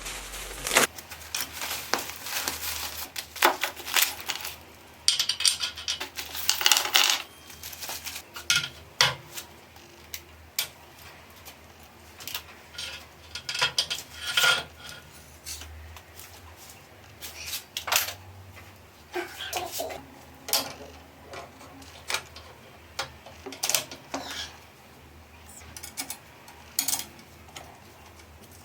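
Metal parts and tools being handled: irregular clinks, knocks and clatter, with a busier run of clanks in the first several seconds. This is typical of fitting a metal lathe steady.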